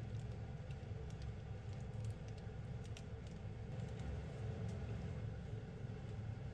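Pot of instant ramen noodles simmering on an induction hob: a steady low rumble with a few faint, scattered light ticks.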